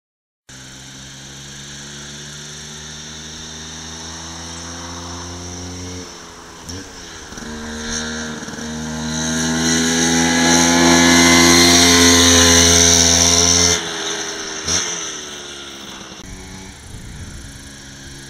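Two-stroke Vespa scooter with a 102cc Polini kit and Polini exhaust, revving hard uphill through a bend. The engine note dips and climbs again at each gear change. It grows loudest as the scooter passes close, then drops off sharply and runs on quieter.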